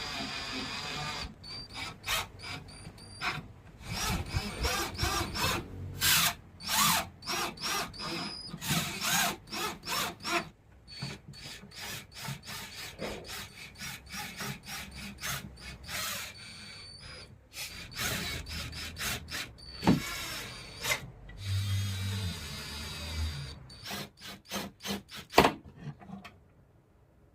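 Power drill running in many short bursts with pauses between them, a high whine in some bursts.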